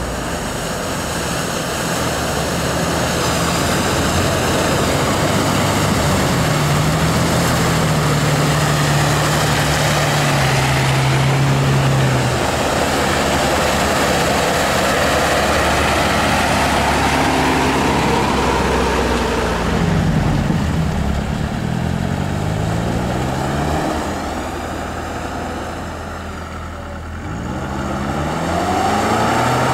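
Several off-road 4x4s, among them a Toyota FJ Cruiser and a UAZ, drive one after another through deep mud. Their engines rev up and down under load, over the rush of tyres churning mud and water.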